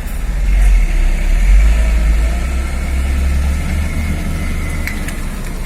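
Logging truck's diesel engine running hard under load on a muddy climb. Its deep rumble swells about half a second in and eases after about four seconds.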